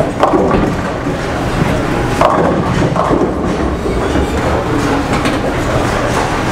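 Bowling ball rolling down the lane with a steady rumble, then a clatter of pins being knocked down about two seconds in.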